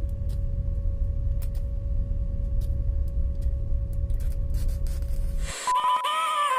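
Workshop machine noise: a loud low rumble with scattered crackling clicks that cuts off suddenly about five and a half seconds in. Music with a melody starts right after.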